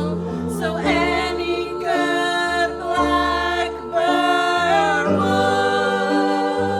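Musical-theatre song: voices singing held, wavering notes over instrumental accompaniment with a bass line that steps to a new note every second or so, one voice sliding down in pitch about two thirds of the way through.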